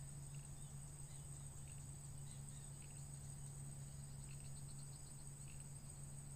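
Faint steady high-pitched chirring of insects, with a low steady hum underneath and a few short faint chirps scattered through.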